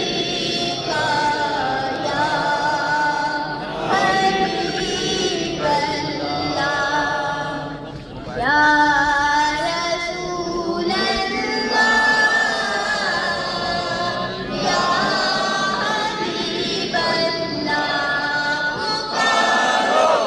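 An unaccompanied naat, a devotional poem in praise of the Prophet, sung in phrases of long held notes that slide in pitch, with short breaks between the phrases.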